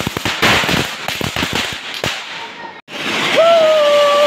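Fireworks crackling in a dense run of rapid pops, cut off abruptly a little under three seconds in. Then a fountain firework (anar) hissing steadily as it sprays sparks, with a person's long held call over it near the end.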